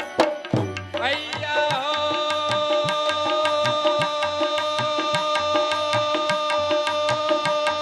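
Live Indian devotional accompaniment: tabla and dholak hand drums playing a steady, quick beat. About a second in, a sustained chord comes in and is held.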